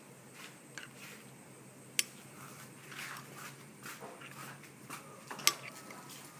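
Low background noise with scattered faint knocks and two sharp clicks, one about two seconds in and one about five and a half seconds in.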